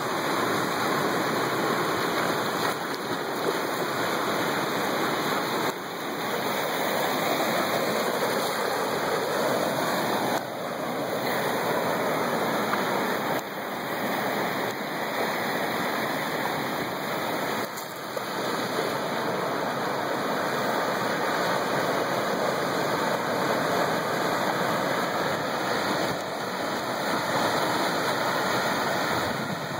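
Ocean surf breaking and washing in over rock and sand in the shallows: a steady rush of water, with a few brief dips in level.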